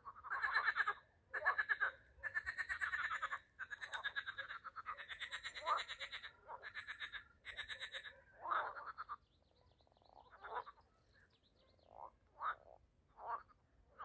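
A chorus of frogs calling: fast pulsed, rattling calls overlapping one another, dense for the first half, then thinning out to scattered single calls.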